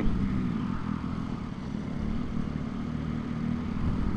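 Triumph Street Triple 675's inline three-cylinder engine running steadily at low revs as the bike rolls at walking pace.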